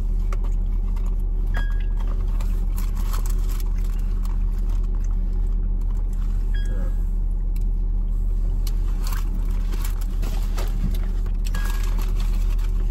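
Steady low hum of a car's idling engine heard inside the cabin, with scattered small clicks and rustles from eating. A short high beep sounds three times, about five seconds apart.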